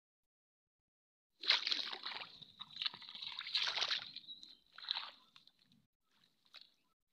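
Shallow muddy paddy water splashing and sloshing as a plastic basket is pushed through it by hand. It starts suddenly about a second and a half in, comes in several surges for about four seconds, then thins to a few faint splashes.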